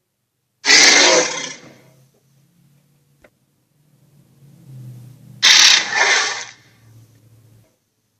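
Animated film monster's roar sound effect: two loud, harsh roars, one about a second in and another about five seconds later, each fading away, with a low rumble in between that swells just before the second roar.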